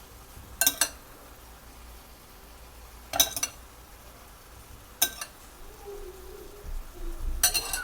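A spoon clinking against cookware while marinade is spooned over chicken wings in a pan: four short sharp clinks about two seconds apart, the last a quick cluster.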